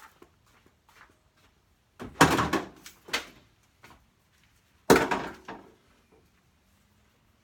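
Loud knocks and clatter as gear is handled inside an empty metal cargo van: two hard knocks, about two seconds in and again near five seconds, each dying away over half a second, with a lighter knock between them.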